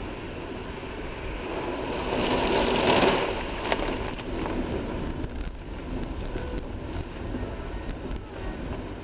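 Car driving on a snowy highway, heard from inside the cabin: steady tyre and road rumble, with a loud rushing whoosh about two to three seconds in as slush sprays over the windshield, then a single click.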